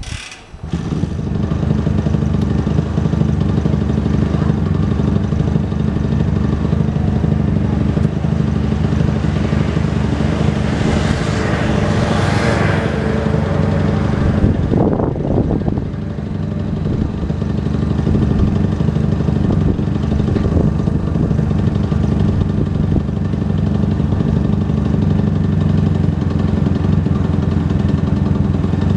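A motor vehicle's engine idling steadily in street traffic, a constant low drone. Between about 10 and 13 seconds a louder, hissier swell comes and goes, like another vehicle passing, and there is a brief burst just before 15 seconds.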